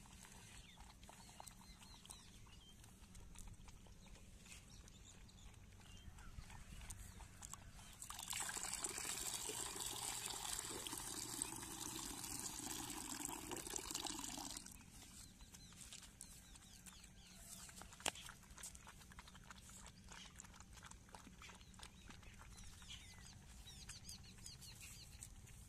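Milk splashing into a bowl, poured from a steel vessel for about six seconds starting about eight seconds in, over faint lapping and slurping of puppies feeding. A single sharp tick sounds about eighteen seconds in.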